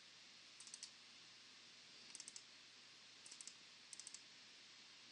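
Faint computer mouse clicks in quick clusters of two or three, four times, over near-silent room tone: double-clicking through folders in a file browser.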